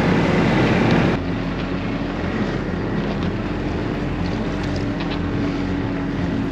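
Snowmobile engine running steadily while riding along a trail. About a second in the sound changes abruptly from a louder, rougher rush to a quieter, even engine hum with a steady tone.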